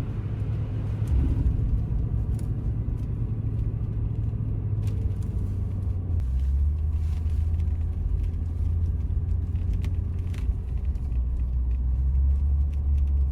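Car driving, a steady low rumble of engine and tyres heard from inside the cabin; the low drone shifts slightly about six seconds in.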